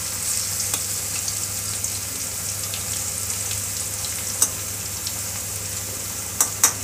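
Pomfret fish pieces frying in hot oil in a wok, a steady sizzle while a spatula works them in the pan. A sharp click about four and a half seconds in and two more close together near the end.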